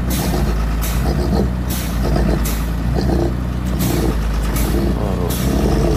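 Diesel engine of a forestry skidder running under load, with a hissing rush that comes back about once a second.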